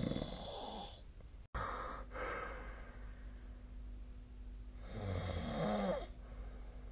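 A sleeping person snoring. One snore fades out about a second in, a breathier snore follows near the two-second mark, and another snore comes about five seconds in.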